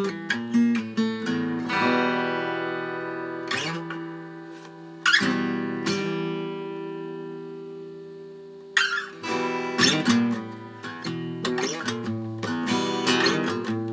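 Solo acoustic guitar played without singing. Sharp strummed chords about 2 and 5 seconds in are left to ring out and fade. Quicker strumming and picked notes follow from about 9 seconds in.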